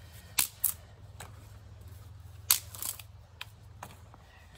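Dry twigs snapped by hand, a series of sharp cracks: two close together near the start, a louder pair about halfway through, then two lighter snaps.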